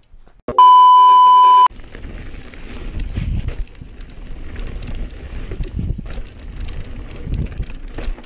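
A loud steady electronic beep lasting about a second, then a mountain bike running fast down a dirt trail: wind rushing over the camera microphone with tyre rumble and the rattle and knocks of the bike over bumps, swelling several times.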